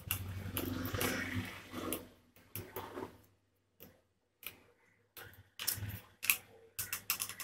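Hard plastic parts of a soda-bottle dispenser tap rubbing and clicking as the tap is worked back onto its cap. A grinding rub fills the first two seconds, then a run of sharp clicks and small knocks.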